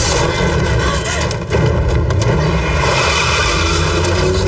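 A dense film sound mix of a car engine running hard under a loud, steady droning roar, cutting back in suddenly about a second and a half in.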